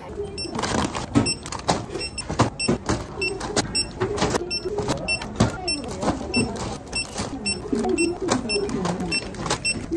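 A short, high electronic beep repeating evenly, about two and a half times a second, over frequent knocks and clatter.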